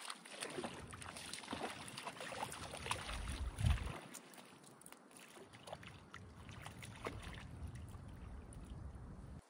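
River water splashing and lapping, with many small splashes, and wind buffeting the microphone as a low rumble; the rumble swells to its loudest about three and a half seconds in.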